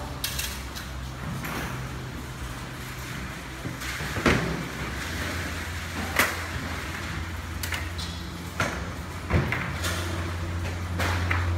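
Plastic fruit crates being handled and stacked, giving scattered sharp knocks and clatter over a steady low hum.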